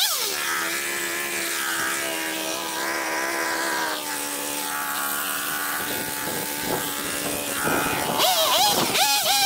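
Rented two-stroke chainsaw falling from full revs to a high idle at the start, idling steadily for several seconds, then revved hard in wavering surges about eight seconds in as it starts cutting a log. The idle is set so high that the chain keeps turning without throttle.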